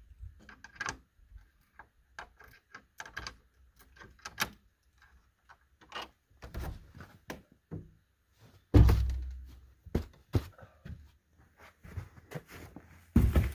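Small metal clicks and rattles of a key and lock being worked at a wooden cabin door, then a loud thump about nine seconds in as the door is pushed open, followed by more knocks and bumps.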